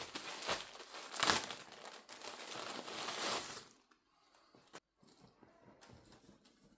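Packaging bag crinkling and rustling as a tank top is unwrapped from it, loud for the first three and a half seconds, then fainter scattered rustles with one short click.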